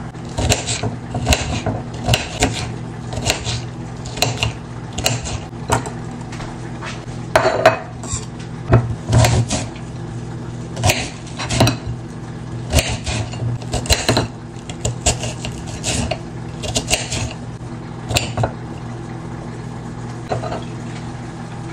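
A serrated knife dicing an onion on a ceramic plate: irregular sharp knocks and clicks as the blade strikes the plate, about one a second. A steady low hum runs underneath.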